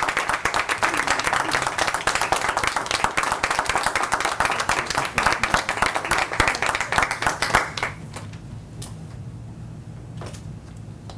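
Small group applauding with hand claps, stopping suddenly about eight seconds in. A few faint single clicks follow.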